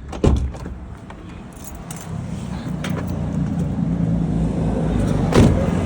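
Keys jangle with a sharp click, then a steady low drone from the 2018 Toyota Hilux builds up and grows a little louder. A second sharp click comes near the end.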